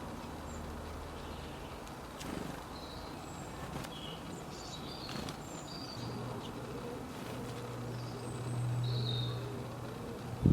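A flying insect buzzing as it passes close, its low hum swelling about three-quarters of the way through, with short high bird chirps scattered throughout.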